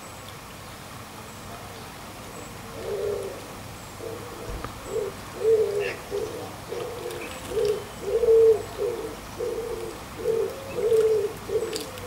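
A pigeon cooing, a run of repeated low notes that starts about three seconds in and keeps going, over the steady bubbling of a small garden water fountain. A few light splashes come near the end as a bathing blackbird throws up spray.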